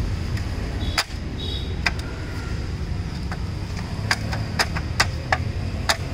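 Toyota Innova's plastic wheel cover being pressed and slapped by hand onto the wheel: a series of sharp plastic clicks and taps, coming quicker in the second half as its clips snap into place.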